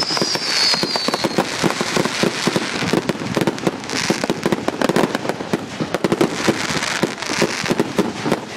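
Consumer firework cakes firing in a finale barrage: a dense, unbroken run of crackling pops and reports. A whistle falling in pitch fades out about a second in.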